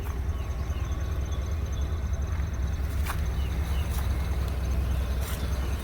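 A vehicle engine running steadily with a low rumble, with a few sharp clicks and faint bird-like chirps.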